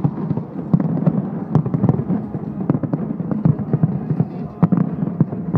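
Fireworks display: a rapid, irregular string of overlapping bangs and crackles, the explosions coming many times a second.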